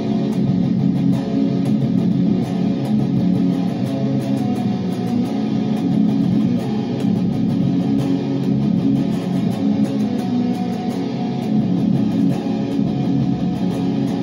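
Seven-string electric guitar played without a break, the picking hand strumming low-pitched chords and riffs at a steady loudness.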